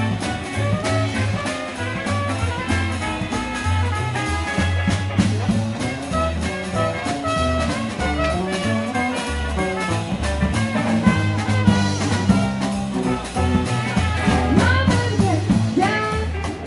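Swing jazz dance music with a steady beat and a stepping bass line.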